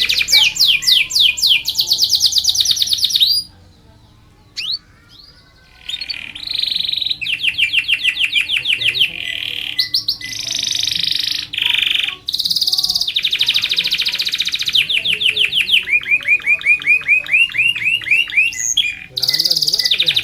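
Domestic canary singing a long song of fast, evenly repeated high trills and rolled phrases. It breaks off for about two seconds around four seconds in, then resumes with more rolls and chirps.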